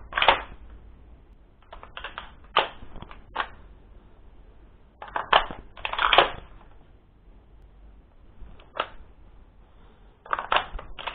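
VFC/Umarex airsoft G3 replica being reloaded: magazine handling and the cocking handle locked back and slapped forward (the HK slap), giving sharp metal clacks in short groups of one to three with pauses of a second or two between.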